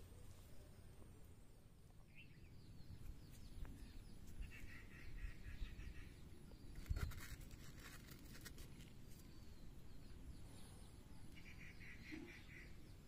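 Faint outdoor ambience with a low rumble, in which a bird twice gives a short rapid trill of repeated high notes, each about a second and a half long. There is a single knock about seven seconds in.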